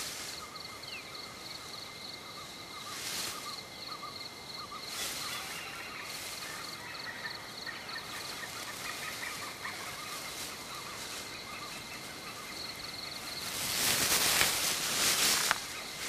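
Forest ambience of birds chirping over a steady high insect trill, broken by bursts of leaves and branches rustling as a white-handed gibbon swings through the canopy. The longest and loudest rustle comes near the end.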